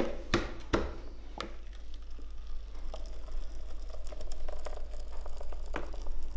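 A few clicks and knocks from the plastic blender jug being handled in the first second or so, then a thin stream of thick flour-and-beer batter pouring from the jug into batter in a plastic bowl: a soft, steady liquid sound.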